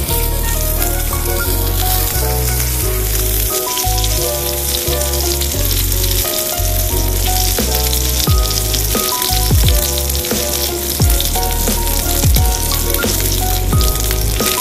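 Pork belly sizzling and frying in a hot cast-iron skillet. Background music with a bass line and drum beat plays over it.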